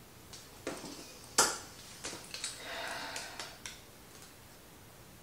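A few light taps and clicks of small hard objects handled on a tabletop, with one sharp click about a second and a half in and a short soft scraping rustle around the middle.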